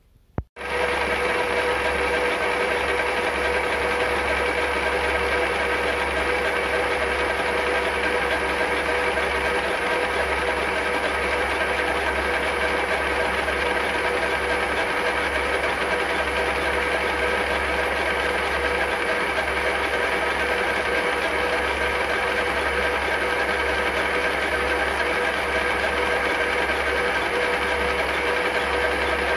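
TVSh-2 school screw-cutting lathe running steadily, its gear train and drive giving a steady whine with several held tones. It comes on abruptly about half a second in. This is a run of the lathe with its shaft-gear, which had two broken teeth, repaired and back in place.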